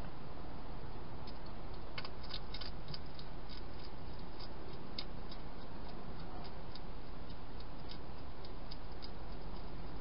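Wild hedgehog eating in a plastic feeding box: irregular small crunching clicks as it chews dry food, over a steady hiss. The clicks come thickest between about two and nine seconds in.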